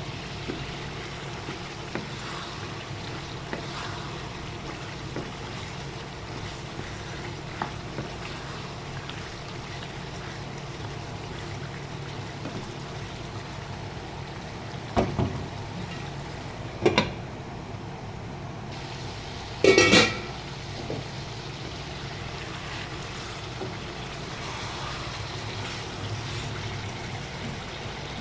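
Steady hiss of gravy cooking in a pot on the stove, with three sharp clanks of a utensil against the pot a little past halfway through, the last one the loudest.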